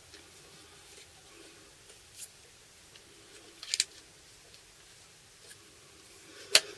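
A few light, sharp clicks from handling a hand rivet gun and rivets: one about two seconds in, a quick double near the middle, and the loudest near the end.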